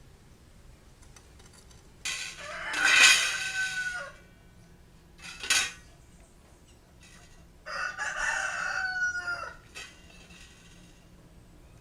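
A rooster crowing twice, each crow about two seconds long and ending in a falling slide, with a short sharp call between them.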